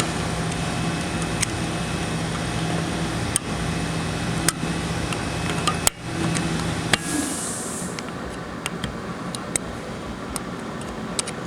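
Scattered small metallic clicks and taps as a valve spring in a transmission valve body is compressed and its retaining keeper worked into place. A steady background hum runs underneath and fades about halfway through.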